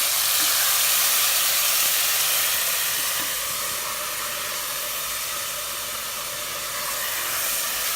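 Onion paste frying in hot oil in a pressure pan, a steady sizzle that grows a little quieter after about three seconds.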